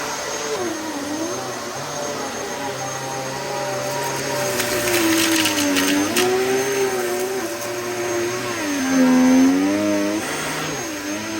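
Dyson DC14 upright vacuum cleaner running, its motor whine wavering and dipping in pitch as the load on it changes. There is a spell of rapid rattling about five seconds in.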